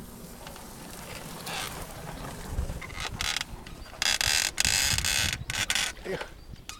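Small boat's oars creaking and grating in their oarlocks as they are worked, with a run of louder harsh creaks in the second half.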